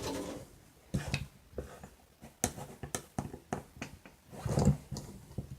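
Irregular clicks and knocks of small hand tools on the plastic parts of an RC truck's front suspension as a stubborn camber link is worked loose, with a louder knock about four and a half seconds in.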